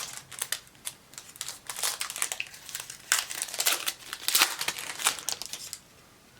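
A trading card pack wrapper being torn open and crinkled in the hands, in a run of irregular crackles that stops near the end.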